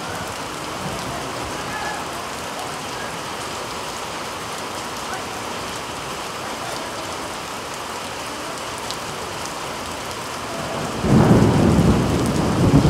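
Heavy rain falling steadily, an even hiss. About eleven seconds in, a loud low rumble breaks in and runs on.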